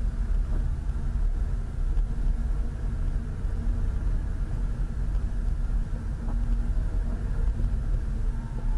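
Steady low rumble of a car's engine and road noise, heard from inside the moving vehicle.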